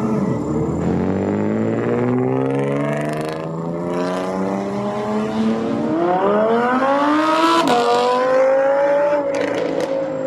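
A supercar's engine accelerating hard away, its note climbing slowly and then faster, dropping sharply at an upshift about three-quarters of the way in, then pulling on in the next gear.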